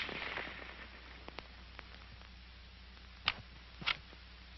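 Echo of an M1 Garand rifle shot fading away, then a few faint ticks and two sharp clicks about half a second apart near the end, over a steady low hum.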